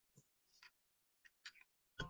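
Near silence: room tone with a few faint, short ticks.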